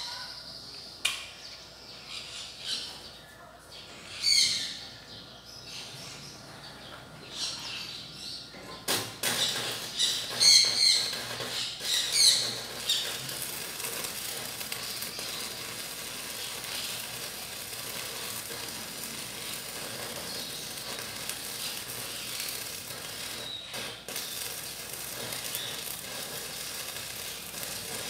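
Stick-welding arc crackling steadily on steel tubing from about nine seconds in. Birds call loudly several times in the first half.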